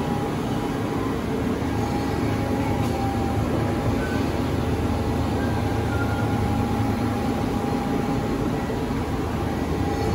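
Steady hum and noise of industrial machinery running in a factory hall, with a faint steady high whine above it.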